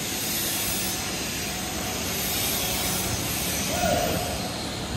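Steady hiss of welding gas flowing at a TIG-welded stainless steel pipe joint.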